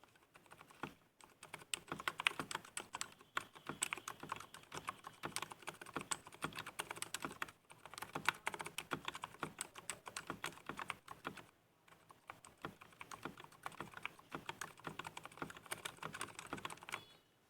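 Fast typing on an IKBC Poker II mechanical keyboard with Gateron silent red switches and stock PBT keycaps: a dense run of soft, damped keystrokes, broken by two short pauses.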